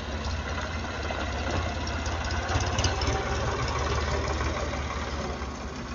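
An engine running steadily, with a low, rapid, even pulsing.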